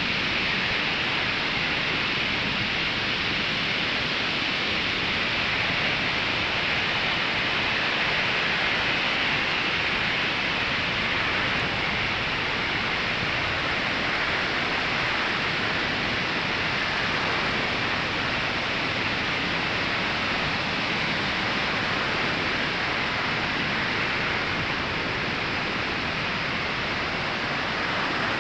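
Ocean surf washing onto a sandy beach: a steady, unbroken hiss of breaking waves.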